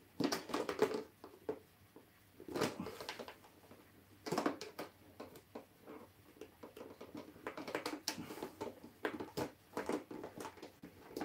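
Clear plastic reservoir box and lid of a misting system being handled, with irregular light plastic knocks, clicks and rustles as the hose and filter are fitted inside.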